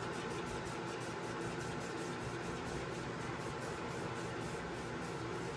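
Fasco Charleston five-blade ceiling fan running steadily: an even rush of air with a faint motor hum, the hiss pulsing about five times a second.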